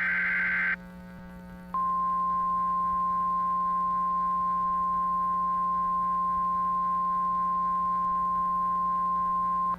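Emergency alert broadcast: the last of the SAME digital header bursts, a harsh data screech, ends under a second in. About a second later the NOAA Weather Radio 1050 Hz warning alarm tone sounds, a single steady high tone held for about eight seconds, over a low steady hum. Together they signal that a warning is about to be read.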